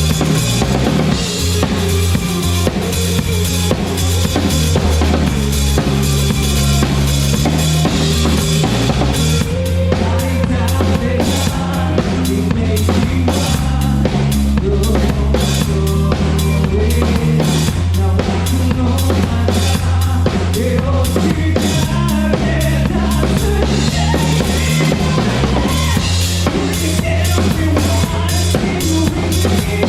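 Drum kit played loud and up front with a live band, dense snare, kick and cymbal hits over a bass line whose notes change every few seconds.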